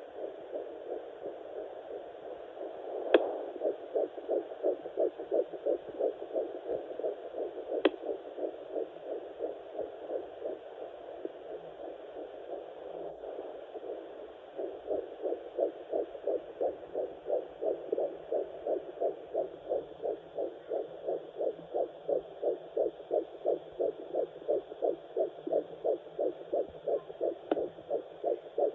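Nine-week fetal heartbeat through a Doppler ultrasound: a fast, even pulse of about three beats a second. It fades for a few seconds in the middle and comes back strong. A few sharp clicks break in, the loudest about three seconds in.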